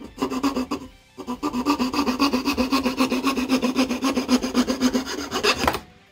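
Fast back-and-forth rasping strokes of a long metal blade working a part held in a vise, about five strokes a second with a metallic ring. A short run of strokes comes first, then after a brief pause a steady run that stops near the end.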